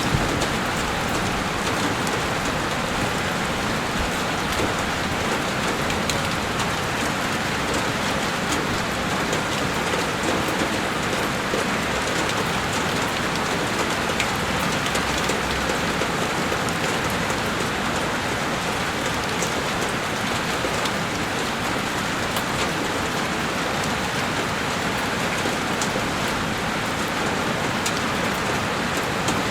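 Heavy rain beating steadily on a window pane, a dense even hiss with countless small drop ticks.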